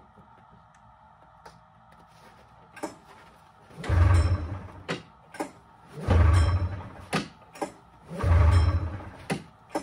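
Polaris Trans Sport snowmobile's two-stroke engine being pull-started: the recoil starter is yanked three times, each pull cranking the engine over in a burst of about a second. Small clicks and knocks come between the pulls.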